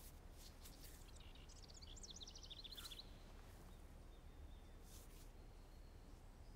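Near silence: quiet room tone, with a brief run of faint, quick bird chirps between about one and a half and three seconds in.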